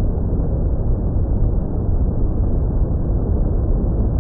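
Steady wind rush buffeting the onboard camera microphone of an FPV model airplane in flight, dull and deep with no high end.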